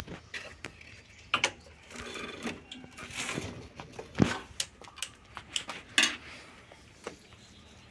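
Irregular clicks, taps and scrapes of screwdriver work on a motorcycle's handlebar switch housing and wiring. The sharpest knocks come about a second and a half in, around four seconds and around six seconds.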